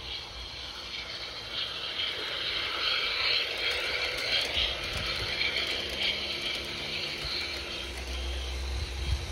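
O gauge model Class 52 Western diesel-hydraulic locomotive and its coaches running along garden railway track, a steady rolling, clattering run that grows louder as the train passes close about three to five seconds in.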